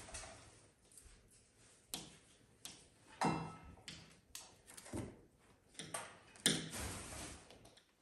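Irregular soft knocks, taps and rustles from a fennec fox and a spotted cat scuffling and playing on blankets, the loudest about three seconds in and again about six and a half seconds in. A brief pitched call sounds about three seconds in.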